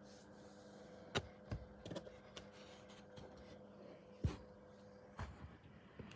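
A few scattered light clicks and knocks, sharp and irregular, over a faint steady hum.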